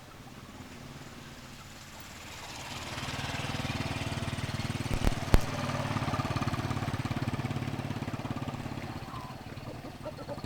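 A small engine running, growing louder about two seconds in and easing off near the end, with two sharp clicks about halfway through.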